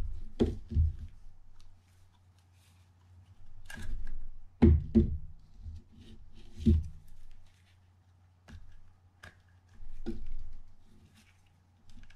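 Small metal parts of a Penn Senator 114H fishing reel being handled and set down on a work mat: irregular light clicks and knocks as the chrome side-plate ring and its screws come off, the loudest a little under five seconds in.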